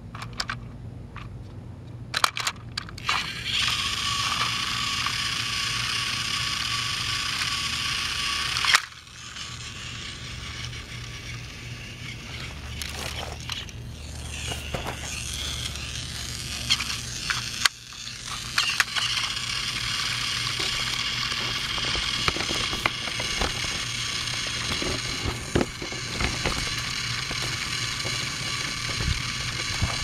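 Battery-powered TrackMaster Thomas toy engine's small electric motor and gears running with a steady whir, stopping with a click about a third of the way in. Clicks and plastic handling knocks follow, then the motor whirs again through the second half.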